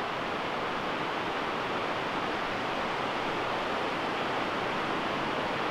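Steady rush of a river flowing nearby, an even hiss of running water with no breaks.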